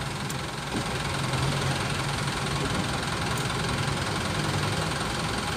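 Sedan's engine idling steadily with a low, even hum, heard from inside the car with street traffic around it.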